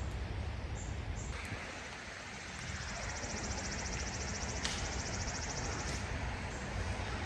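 Outdoor ambience beside a mountain creek: a steady rushing hiss over a low rumble. A high, fast trill starts about three seconds in and lasts about three seconds, with a few short high chirps before it.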